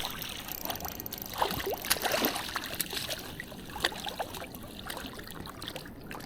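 Stream water trickling and splashing in a shallow creek, with scattered short sharp splashes and ticks.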